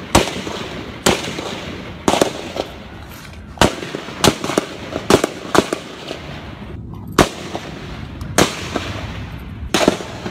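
Rifle gunfire: about a dozen sharp shots at irregular spacing, sometimes two close together, with a pause of more than a second between clusters, each shot trailing a short echo.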